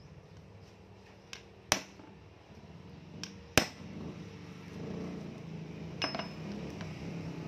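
A hammer strikes a nail held against a metal mop handle where it fits into a broom's plastic threaded socket, to pin the handle in place. There is a light tap and then a sharp strike, twice, about two seconds apart, and a smaller ringing tap near the end.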